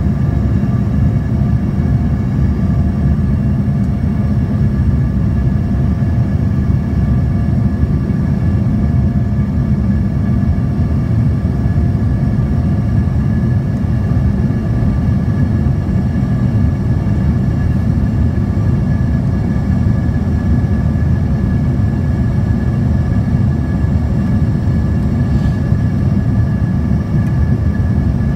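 Airliner cabin noise in flight, heard from a window seat over the wing: a steady, loud rumble of engines and airflow, with a faint steady whine above it.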